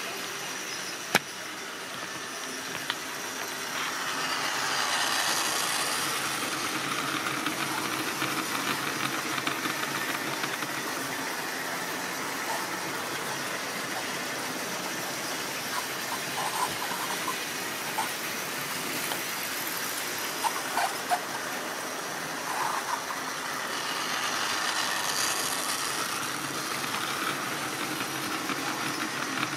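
Tri-ang model train running on the track: a steady whirr of the motor and wheels that swells twice as the train passes close by, with a few short sharp clicks.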